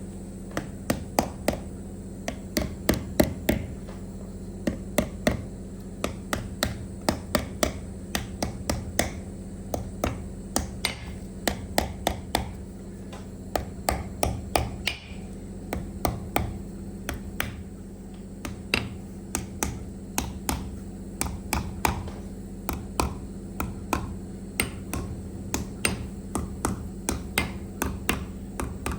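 Repeated sharp taps and clicks from hand-tool work on a MAN TGA/TGX ZFLS truck steering column, irregular and often two or three a second, over a steady low hum.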